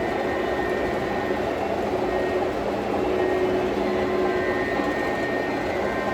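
O scale model trains running on the layout: a steady rolling rumble of wheels and motors on the track, with thin high tones coming and going.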